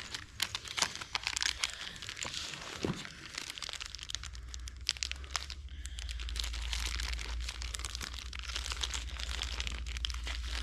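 Packaging rustling and crinkling as tools are unwrapped and handled, with many small irregular clicks and crackles. A low steady rumble comes in about four seconds in.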